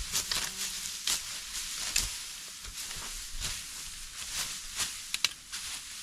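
Irregular dry rustling and crunching, with sharp crackles about once or twice a second.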